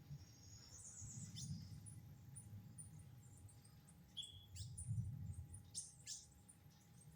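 Several small birds chirping faintly: short high chirps and quick downward-sweeping notes, busiest in the second half, over a low rumble.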